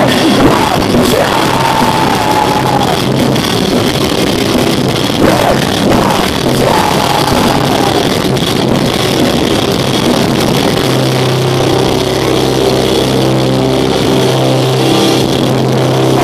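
Rock band playing live and loud over the stage PA, heard from among the audience. About two-thirds of the way in, a held low note or chord sets in.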